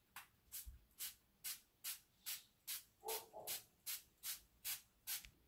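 Small trigger spray bottle misting water onto a strand of hair. It goes in a quick run of short squirts, each a brief hiss, about two to three a second, about thirteen in all.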